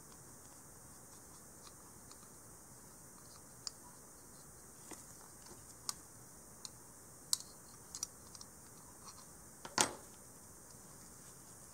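Small parts of an E-11 blaster replica's aluminium grip assembly being handled in gloved hands: scattered light clicks and taps of metal on metal, with one louder knock toward the end as a part is set down.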